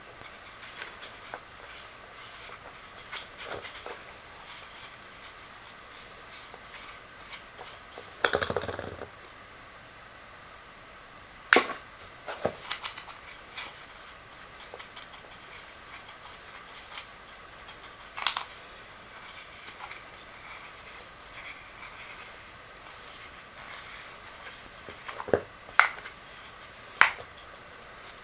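Tools and small hard parts handled on a workbench: scattered sharp clicks and knocks, with a short scraping rustle about eight seconds in.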